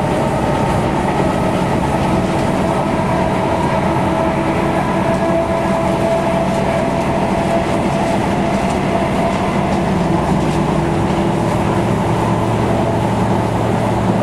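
British Rail Class 313 electric multiple unit running steadily at speed, heard from inside the carriage: a continuous rumble of wheels on rail with a steady electric motor whine over it.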